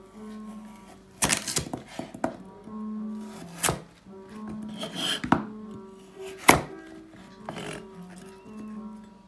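Kitchen knife chopping through a raw carrot onto a plastic cutting board: about seven separate, irregularly spaced cuts, the loudest late on, over steady background music.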